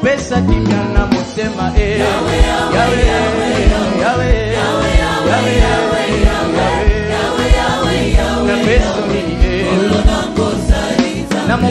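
Congolese gospel worship music in Lingala: choir voices singing over a band with a steady drum beat.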